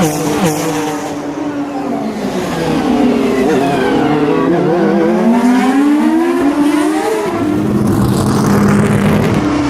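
Several race car engines heard from trackside, their pitch dipping and then climbing as the cars pass and accelerate; about seven seconds in, a steadier, lower engine note takes over.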